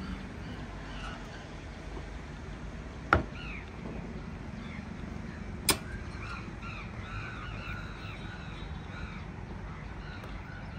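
Birds chirping over a steady low background rumble, with two sharp knocks, the first about three seconds in and the second a couple of seconds later.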